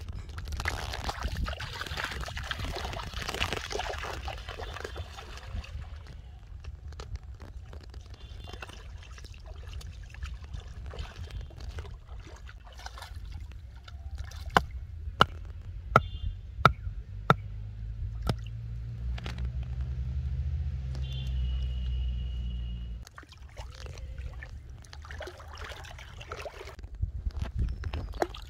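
A wooden mallet striking a wooden stake in wet riverbank mud, about seven sharp knocks at roughly two a second, about halfway through. Water splashing and trickling around the feet near the start.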